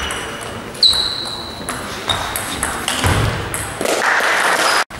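Table tennis rally: the plastic ball clicking off bats and table about twice a second, some hits with a short high ringing ping, the loudest about a second in. Near the end comes about a second of rushing noise, which then cuts off suddenly.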